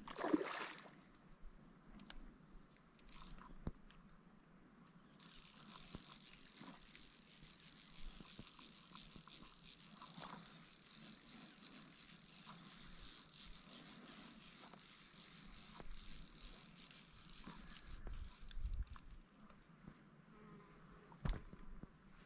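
Fly reel's click-and-pawl drag buzzing steadily as line runs through it, starting about five seconds in and stopping abruptly after about thirteen seconds. A few faint knocks are heard around it.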